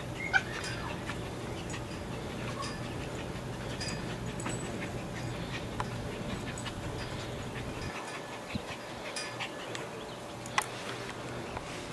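Small poodle panting and making small vocal sounds while nosing and pushing a tetherball, with scattered light clicks and knocks and one sharp sound about half a second in. A steady low hum runs underneath and stops about eight seconds in.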